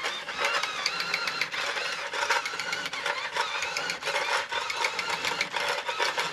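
Small electric motor and plastic gearbox of a toy remote-control skid steer loader whirring as it drives, with a rapid clicking clatter from the gears.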